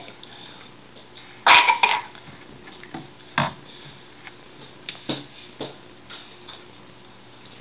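A plastic sippy cup knocking and clattering against a table: a loud cluster of knocks about one and a half seconds in, then a few single knocks.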